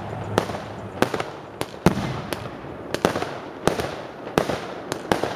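Aerial firework shells bursting overhead in an irregular series of about ten sharp bangs, each trailing off into a rolling echo.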